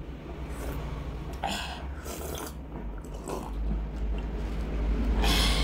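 Close-miked mouth sounds of a woman drinking water from a glass: a few separate gulps and swallows, the loudest near the end.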